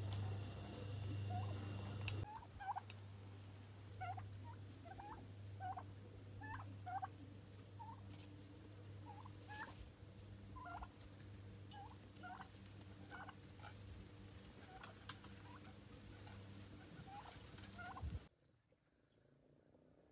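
Flock of domestic turkeys calling: short, clipped, upturned notes, about two a second. A low steady hum runs under them for the first two seconds and is the loudest part. The calls cut off suddenly about two seconds before the end.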